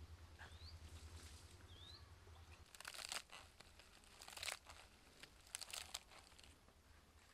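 Crisp leaves of a frilly leaf-lettuce head crinkling and rustling in the hands, in three short bursts. Two short rising bird chirps come in the first two seconds.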